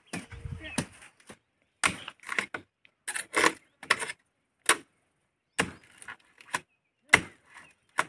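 A blade chopping into the fibrous base of a young palm: about ten sharp strokes at irregular intervals, some in quick pairs.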